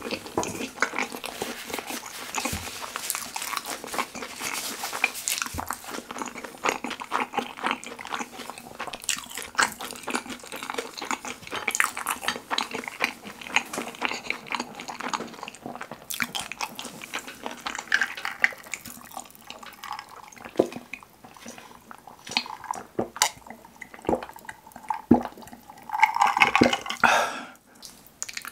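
Close-miked wet chewing of saucy fried pork with kimchi and cheese (kimchi pizza tangsuyuk), full of sticky mouth clicks and smacks that thin out after about twenty seconds. Near the end comes a louder, longer wet squelching burst.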